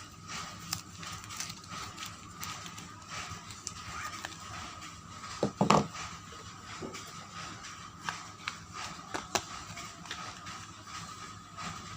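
Soap packaging being handled and unwrapped: scattered taps, clicks and crinkles, with one louder knock about six seconds in, over a faint steady whine.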